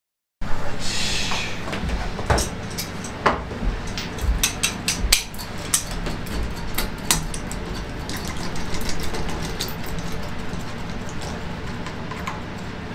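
Irregular metal clicks and knocks of hand tools and rocker gear as the rocker assembly is fitted and bolted onto a Fiat 500 F engine's cylinder head, over a steady low hum. A brief hiss sounds about a second in.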